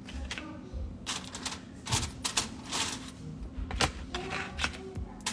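Irregular sharp clicks and taps, a few each second.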